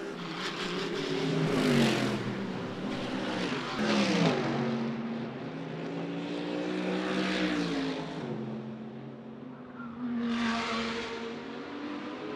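Mercedes-AMG GT3 race car's V8 engine at full throttle. Its pitch climbs and then drops steeply several times as it shifts gear and sweeps past.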